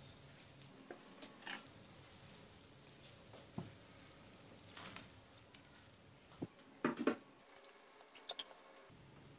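Thin coconut-milk broth bubbling faintly at a simmer in a nonstick pan, with scattered light clicks and taps of a spoon and spatula against the pan. The loudest taps come in a cluster about seven seconds in.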